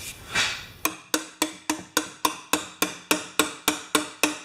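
A brief swish, then even, rapid tapping at about three and a half strikes a second, each tap with a short ring: the compressor's base being tapped to straighten it after it was dropped.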